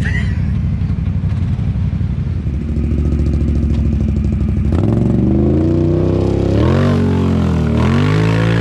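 Side-by-side UTV engine running steadily, then revving hard from about five seconds in, its pitch rising and falling in repeated swells.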